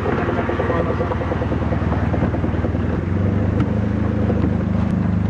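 Boat engine running steadily under way, its note shifting a little about three seconds in.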